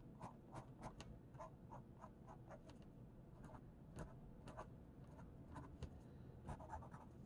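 Faint scratching of a Faber-Castell Pitt Artist Pen's felt tip on a heavyweight paper pad, in many short, irregular strokes as it draws crosshatching and small loops.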